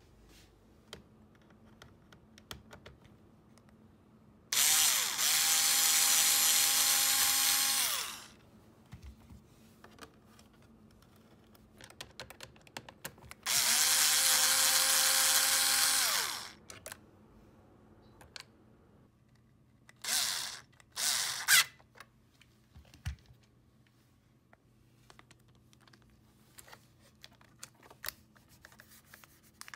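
Electric screwdriver motor spinning up, running for about three seconds and winding down, twice, then two short spurts about twenty seconds in. Light clicks and handling noise in between.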